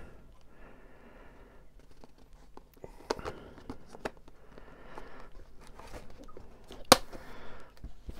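Crinkling and tearing of a foil booster pack being handled and opened, a run of small crackles and clicks with one sharper click near the end.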